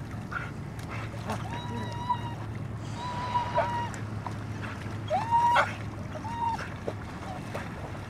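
Dog whining while swimming after a stick: four drawn-out, high, level cries, the loudest about five seconds in, over light splashing of water.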